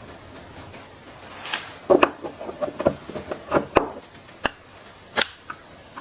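A run of sharp clicks and knocks of hard parts being handled and set down, starting about a second and a half in, with the loudest knocks near two seconds in and again near five seconds in.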